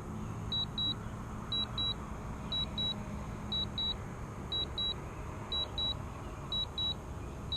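DJI drone remote controller beeping its low-battery warning: a high double beep about once a second. A low steady hum sits underneath and fades out about halfway through.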